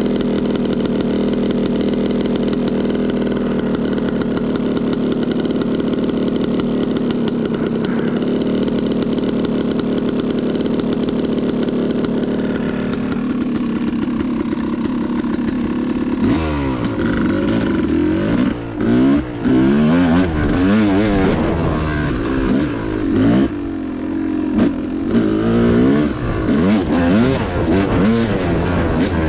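Two-stroke single-cylinder engine of a Yamaha YZ250X dirt bike, running at a steady pitch for about the first half, then revving up and down over and over as the throttle is worked around the motocross track.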